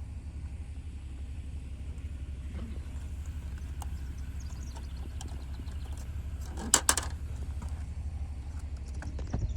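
Vehicle engine idling: a steady, low, pulsing rumble, with a quick cluster of sharp clicks about seven seconds in.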